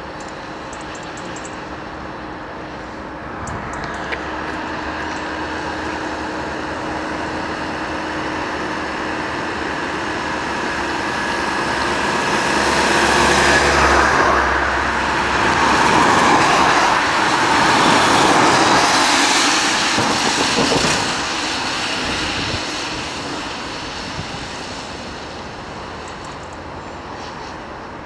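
A heavy vehicle driving past: its engine and road noise grow louder to a peak around the middle, then fade away.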